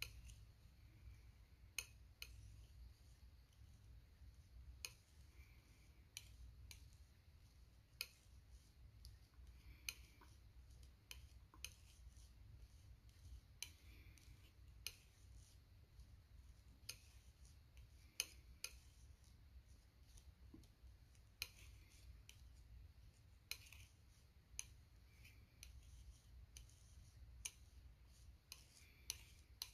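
Metal palette knife mixing thick acrylic paint: light tapping clicks at an uneven pace, about one a second, with soft wet smearing as the blade drags the paint between taps.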